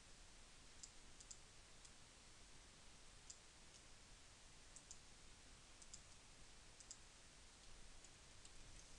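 Near silence: a faint hiss with about a dozen faint, sharp clicks scattered through it, from a computer's mouse and keys being worked.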